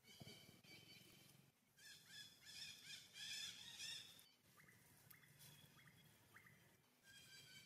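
Faint high-pitched animal calls: a few squealing cries, loudest about two to four seconds in, followed by several very short rising chirps.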